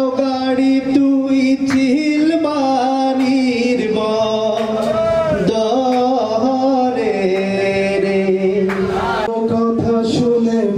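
A man singing into a handheld microphone, amplified through a PA loudspeaker, holding long drawn-out notes that slide from one pitch to the next.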